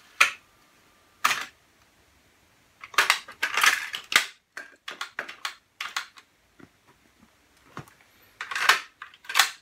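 Clicks and clunks from a Pioneer CT-W205R double cassette deck as its transport keys and cassette doors are worked by hand and a cassette is handled. There are single sharp clicks near the start, a busy cluster of clacks about three to four seconds in, small scattered clicks, and another loud cluster near the end.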